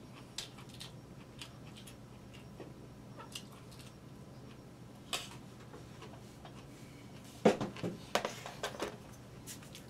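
A fork clicking and scraping on a plate now and then while someone eats. About seven and a half seconds in comes a sharp knock, the loudest sound, then a second of rustling and knocking as the person gets up from the chair.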